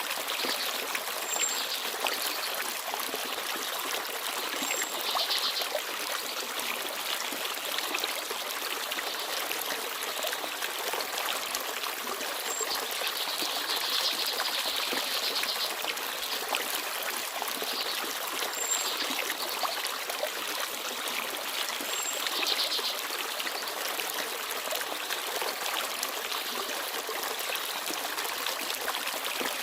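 Small forest stream babbling and trickling steadily over stones, with brighter splashy swells now and then. A few brief, faint high chirps from small birds are scattered through it.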